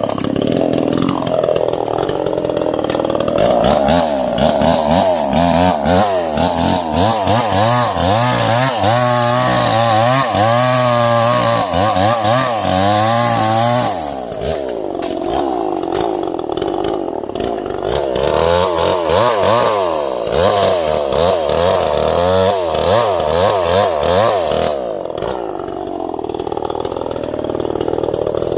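Two-stroke chainsaw running hard as it cuts through small sengon trees. The engine pitch rises and is held high for several seconds at a time, then drops back between cuts.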